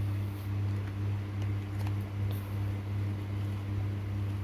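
A steady low hum, with a few faint clicks and rustles of a small cardboard product box being handled and opened.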